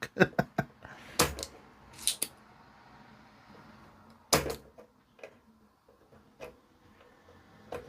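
Scattered clicks and knocks of small parts and tools being handled on a workbench, irregularly spaced, the loudest a sharp knock about four seconds in.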